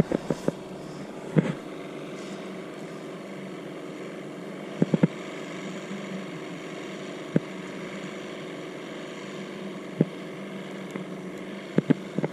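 Steady distant motor drone, like an outboard motorboat running out on the lake. Over it come a few short sharp clicks and taps from hands handling the hook, line and bait.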